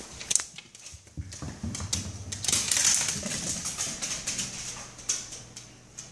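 Scottish terrier's claws clicking and scrabbling on a hardwood floor as it runs, a rapid clatter of many ticks, loudest a little after the middle.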